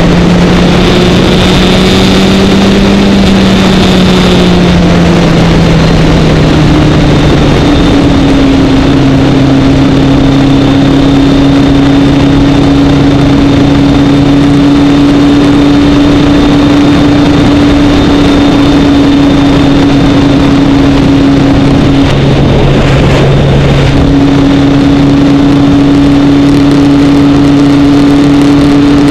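Kawasaki Ninja 1000 inline-four motorcycle engine running at cruising speed under loud wind rush on the microphone. The engine note eases down over the first few seconds and then holds steady. It breaks off briefly about three-quarters of the way through before picking up again.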